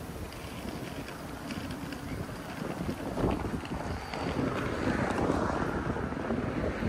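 Wind buffeting the phone's microphone, a fluttering rumble over steady outdoor noise that grows louder in the second half.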